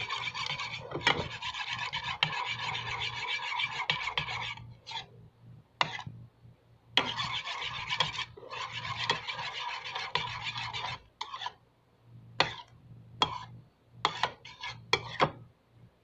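Metal utensil scraping round a bowl, stirring a thick yogurt mixture. Long runs of fast, continuous scraping are broken by pauses, and near the end come a string of short separate strokes.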